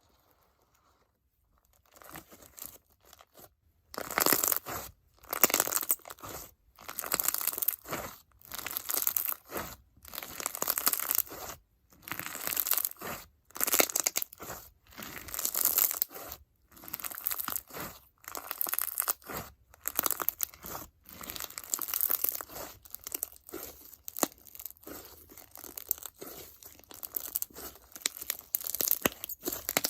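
Icee-jelly crunch slime packed with foam beads and bingsu beads being squeezed and pressed by hand. Each squeeze gives a burst of crackling and popping. It starts faint about two seconds in, then comes in strong bursts roughly once a second.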